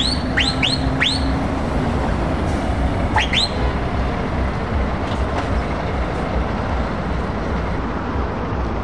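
DAF XG truck's diesel engine running as the tractor unit pulls away at low speed, a steady low rumble. Several short rising chirps sound over it in the first second or so and twice more about three seconds in.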